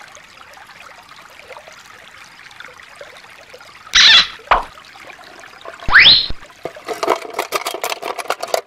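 Shallow stream water trickling over rocks, then a clear plastic toy box crackling and clicking as it is handled near the end. Two louder short sounds come about four and six seconds in, the second a rising squeak.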